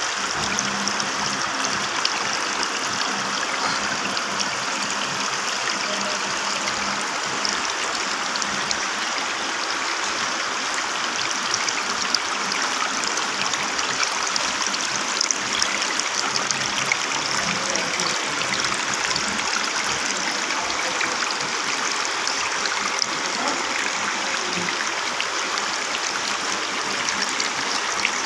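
Water trickling and splashing steadily down a tiered decorative tabletop fountain, pouring from one shell-shaped bowl into the next.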